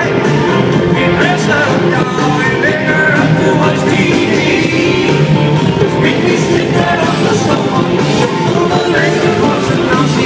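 Live country-rock band playing an up-tempo song, with a male lead singer over the band, heard loud and dense from within the concert crowd.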